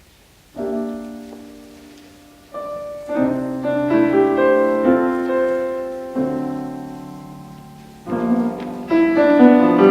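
Piano music: a chord is struck about half a second in and left to ring and fade, then further chords and melody notes follow, each dying away after it is struck.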